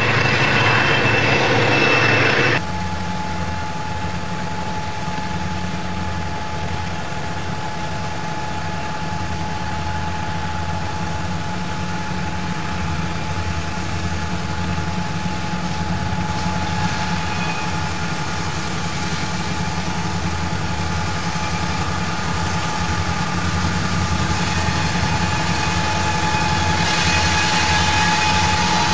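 A freight train on a curve with a high steady squeal for about two and a half seconds, then an abrupt cut to Southern Pacific diesel locomotives approaching upgrade: a steady low engine drone with a steady whine above it, slowly growing louder, most clearly near the end.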